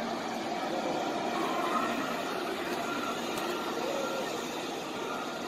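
Steady murmur of a large crowd, with faint distant voices rising and falling in it.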